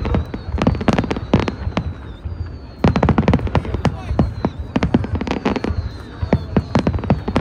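Fireworks going off in rapid, irregular, overlapping bangs and cracks, coming thickest from about three seconds in, with faint falling whistles above them.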